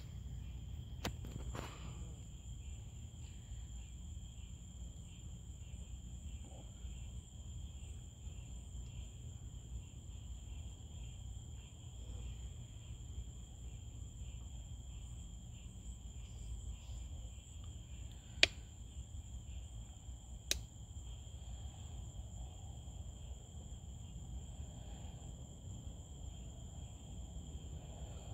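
Night-time insect chorus: a steady, high-pitched trilling of crickets over a low background rumble. A few sharp clicks cut through it, the loudest two about two seconds apart past the middle.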